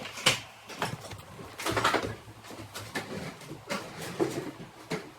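A series of irregular knocks and short scrapes, about seven in all, some a little louder than others.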